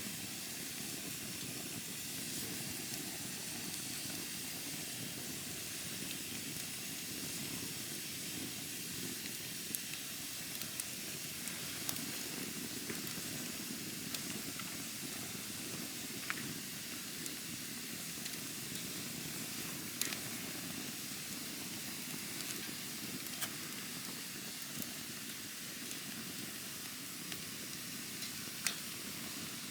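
Wood campfire burning, with a steady hiss and scattered sharp crackles and pops from the burning wood.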